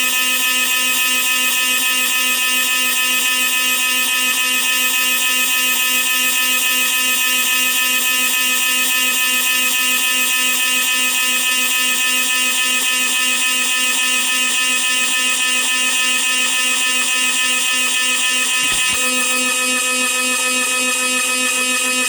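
CNC milling machine cutting, giving a steady, loud buzzing whine; the tone shifts slightly about nineteen seconds in.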